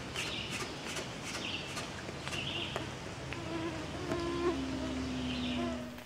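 Flying insects buzzing close to the microphone. A steady whining drone grows stronger a little past the halfway point and holds to the end, with short high chirps repeating about once a second.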